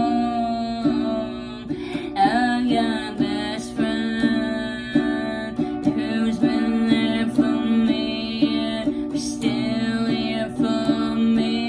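Music led by a plucked guitar, with steady repeated notes.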